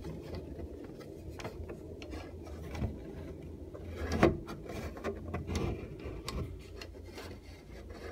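Mitsubishi centrifugal bathroom exhaust fan running with a steady low hum and air rush, overlaid by irregular rubbing and scraping noises, with a sharp knock about four seconds in.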